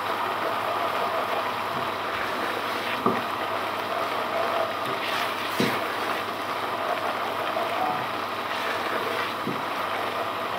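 Thick curry masala sizzling in a pot on a gas stove as a ladle stirs it, with a few knocks of the ladle against the pot.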